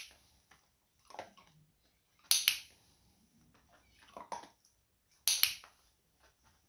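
Dog-training clicker sounding two sharp double clicks (press and release) about three seconds apart, marking the head turn being shaped. Softer clicks and rustles fall between them.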